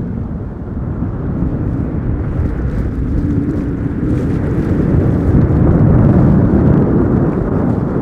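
Loud, steady low rumble of wind buffeting the microphone on an open boat deck.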